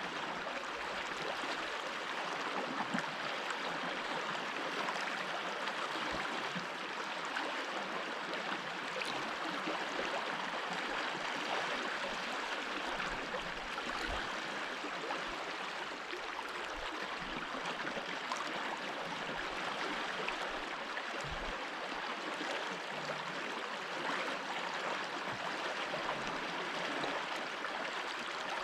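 A stream running over stones, a steady rushing and gurgling of water with occasional faint low bumps.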